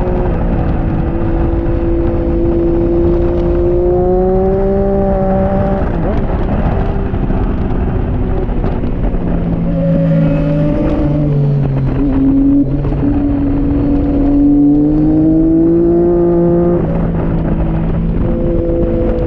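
Onboard sound of a Triumph Daytona 675R's inline three-cylinder engine at speed on track, its note climbing steadily under acceleration and breaking off sharply about six seconds in and again near the end, with stepped drops in pitch around ten to twelve seconds in as gears change. A constant rush of wind noise lies underneath.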